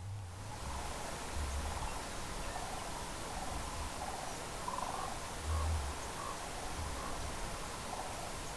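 Sandhill cranes giving repeated rolling, rattling calls, over a steady hiss and low wind rumble on the microphone.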